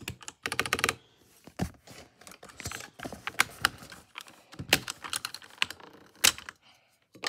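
Clicks and clacks from a Langtu LT84 mechanical keyboard's keys being pressed or handled. They come in an irregular series, with a quick burst of clicks about half a second in.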